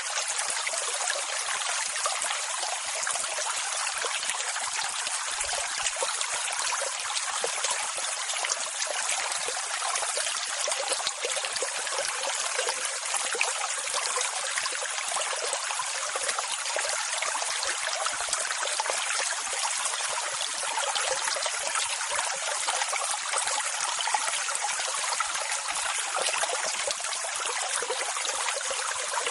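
Ocean surf: a steady hiss of rushing water, thin with no deep rumble, with no single wave surge standing out from the rest.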